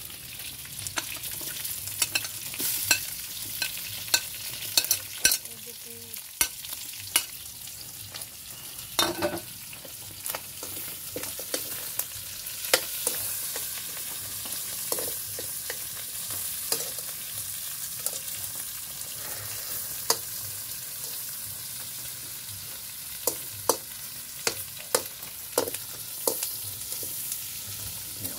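Chicken and pork pieces sizzling in a metal wok over a wood fire, with a metal spatula scraping and clinking against the pan in frequent irregular clicks as the meat is stirred and browned with onion and garlic.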